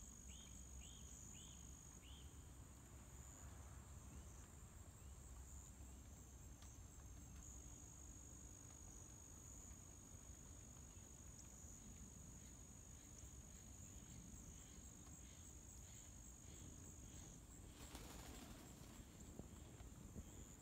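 Faint, steady high-pitched trilling of insects in the evening field, with a short run of about five quick chirps in the first two seconds and a brief rustle near the end.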